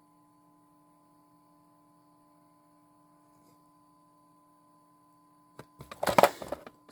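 A faint, steady electrical hum with near silence around it. About five and a half seconds in come a few sharp clicks, then a brief loud rustling clatter of handling noise as small parts are picked up.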